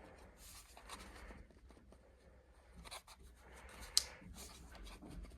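Faint rustling and scraping of objects being handled, with one sharp click about four seconds in.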